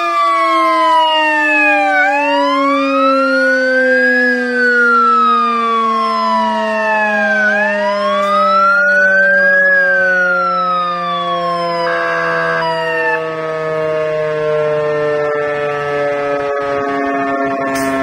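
Fire truck siren wailing in slow up-and-down sweeps, each rise or fall lasting two to three seconds, then stopping about twelve seconds in. Underneath, a lower, steady siren tone keeps sinking slowly in pitch throughout, like a motor-driven siren winding down.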